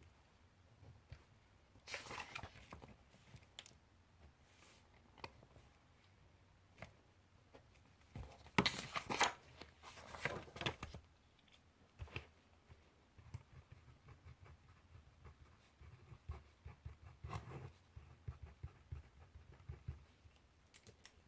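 Pen or pencil writing on paper, a run of small quick scratching strokes in the second half. Paper rustles twice, briefly about two seconds in and longer and louder around the middle.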